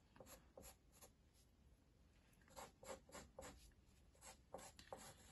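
Faint pencil strokes scratching on drawing paper: a few short strokes in the first second, a brief lull, then a quicker run of strokes from about two and a half seconds in.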